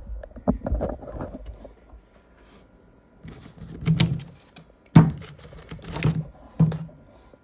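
Handling noise, then a series of separate knocks and clunks, as of solid metal parts being picked up and set down.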